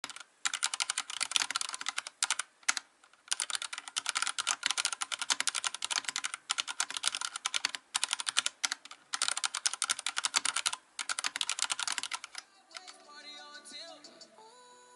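Fast, continuous typing on a Vortex Race3 mechanical keyboard with Cherry MX Silver linear switches, a rapid clatter of key strokes broken by a few brief pauses. It stops about two and a half seconds before the end, when soft music begins.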